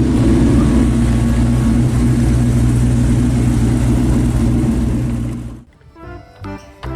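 A motor engine running steadily and loudly, with a low, even drone. It cuts off abruptly about five and a half seconds in, and light background music follows.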